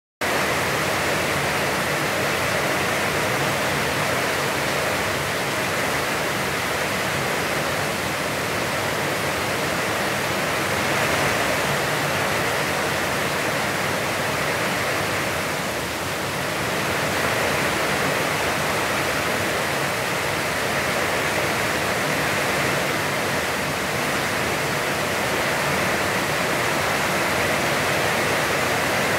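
Heavy, constant rain falling as an even, steady hiss that cuts in suddenly at the very start.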